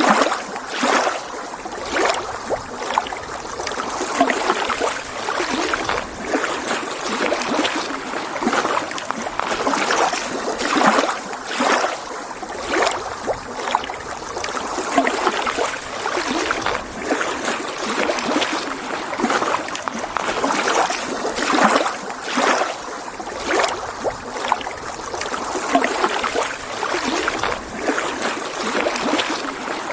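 Small lake waves lapping and splashing against the shore in an irregular, continuous slosh, with frequent brief swells.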